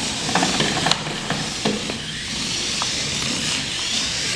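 Air Hogs Hyper Tracks remote-control cars running on a hard laminate floor, their small electric motors giving a steady high whir, with a few sharp clicks and knocks in the first two seconds.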